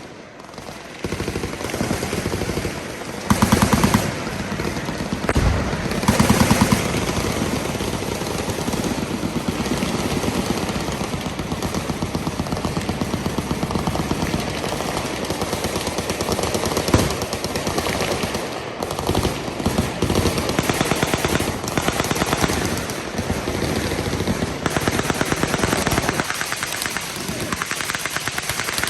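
Sustained automatic gunfire from several machine guns firing at once, rapid shots overlapping without a break, with heavier, louder blasts about three and six seconds in.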